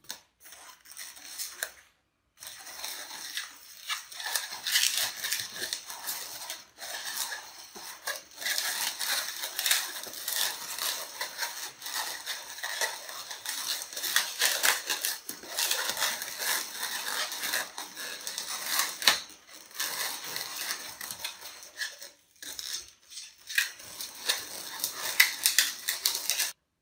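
Latex modelling balloons being twisted and handled: steady squeaking and rubbing of the inflated rubber as the balloon is twisted into segments and locked, with a couple of brief pauses.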